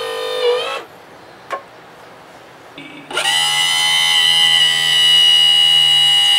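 Electric power tilt and trim pump motor on a 1987 Johnson 40 hp outboard running with a loud whine. It winds down and stops just under a second in, a click follows, and about three seconds in it starts again and runs steadily while the unit is cycled to bleed air from the freshly filled system.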